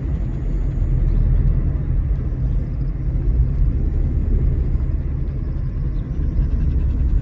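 Steady low rumble of a car on the move, heard from inside the car: engine and road noise.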